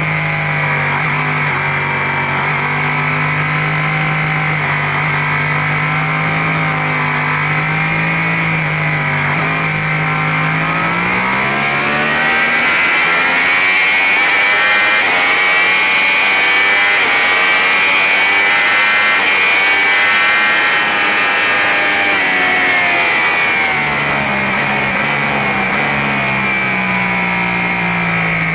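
Sport bike's engine at track speed, heard from the bike itself with a steady rush of wind. The revs hold steady for about ten seconds, climb under throttle, stay high and a little louder, then fall back a few seconds before the end.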